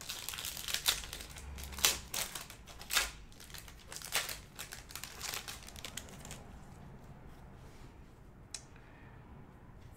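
A plastic trading-card pack wrapper crinkling and tearing as it is opened, with the cards handled and slid out. Sharp crackles come thick for about six seconds, then give way to faint handling.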